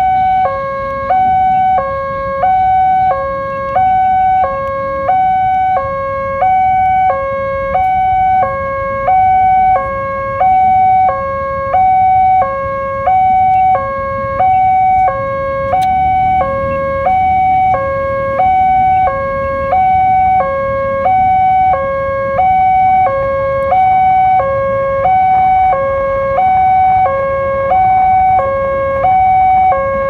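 Railway level-crossing electronic warning alarm sounding steadily as a two-tone hi-lo signal: a higher and a lower tone alternate, about one high-low cycle a second, while the crossing lights flash.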